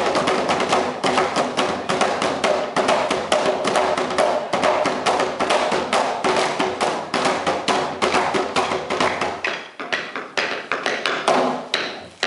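Drumsticks beating plastic barrels in a fast, steady rhythm of about five strikes a second; about nine or ten seconds in it thins to a few separate, spaced hits.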